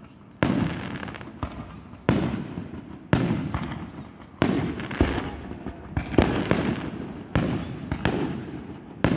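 Aerial fireworks shells bursting overhead in a rapid series of about a dozen sharp bangs, spaced half a second to a second apart, each trailing off in a rumble.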